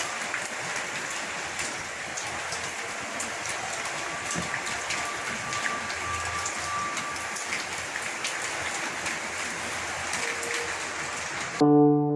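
Steady rain falling: an even hiss with many small drop ticks. It cuts off abruptly near the end, giving way to music.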